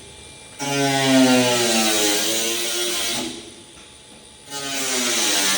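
Power tool, most likely an angle grinder, cutting along a marked line: its motor whines over a cutting hiss and its pitch sags under load. It stops a little past three seconds and starts cutting again about a second later.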